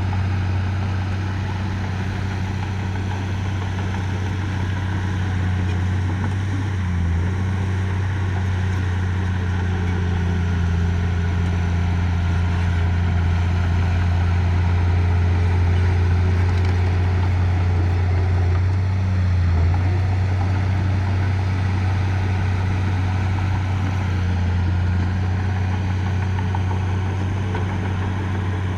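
Diesel engine of a mini bulldozer or dump truck running steadily: a low, even drone that wavers briefly twice.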